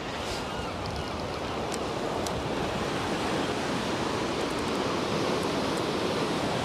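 Sea surf washing steadily onto the shore, a continuous even rush that swells slightly, with a few faint light ticks over it.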